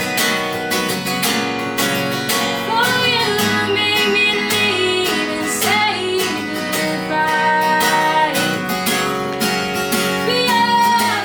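Live acoustic guitar strummed steadily through an instrumental passage between sung lines of a song.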